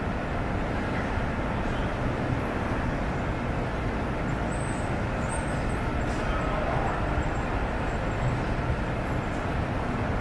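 Lisbon Metro train running: a steady, even noise with no breaks, and faint high-pitched squeaks about halfway through.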